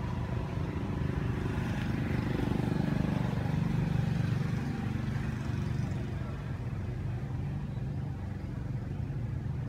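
A steady low engine rumble, swelling slightly about two to four seconds in.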